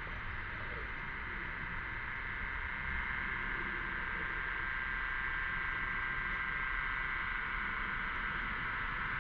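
Cicada chorus, a steady high drone that swells louder about three seconds in.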